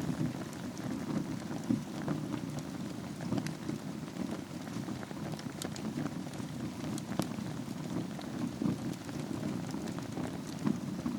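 Wood fire burning in a fireplace over embers: a steady low rush of flame with frequent sharp crackles and pops from the burning wood.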